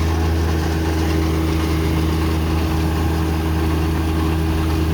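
Compact tractor engine running steadily at constant speed, driving a mini round baler through its PTO as the bale is finished and wrapped.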